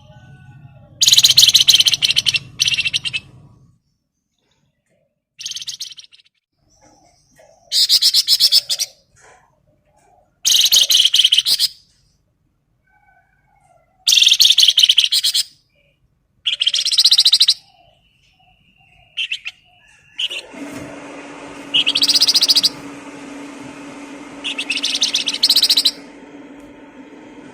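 A songbird singing loud, rapid chattering phrases about a second or two long, repeated every few seconds, with fainter short notes between them. From about twenty seconds in, a steady low hum runs under the song.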